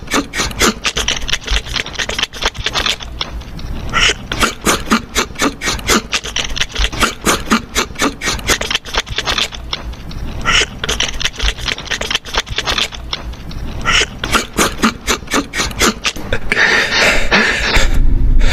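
A dwarf hamster crunching and nibbling hard dry food bits, a fast irregular run of loud crackling clicks in clusters with brief pauses.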